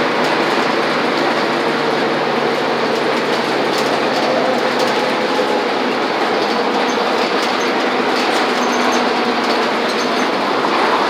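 Inside a moving city transit bus: steady engine hum and road noise while the bus drives along.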